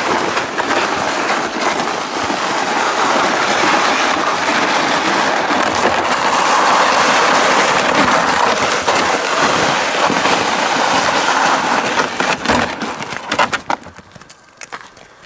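Loaded plastic sled dragged across ice and crusty snow: a loud, continuous scraping rattle, with a few knocks near the end before it stops about fourteen seconds in.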